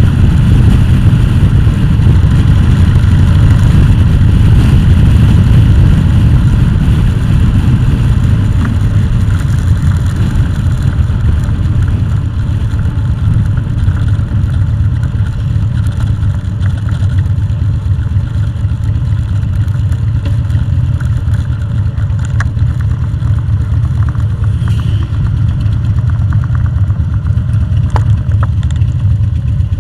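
Vehicle engine running steadily on the move, with a heavy low rumble of engine, wind and road noise; it eases slightly part way through.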